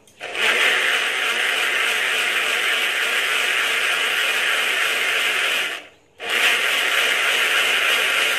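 Small single-serve bottle blender running in two pulses, blending moringa leaves, calamansi and oregano with water: a steady whirring for about five and a half seconds, a brief stop, then it starts again near the end.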